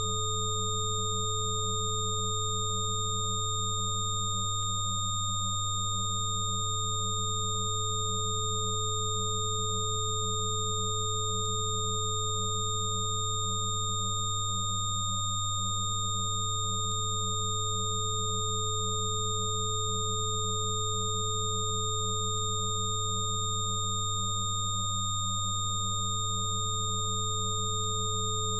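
Electronic sine tones of a 'frequency therapy' track, several pure tones held together without change: a low hum with higher whistling tones above it. A middle tone fades out briefly three times, about ten seconds apart.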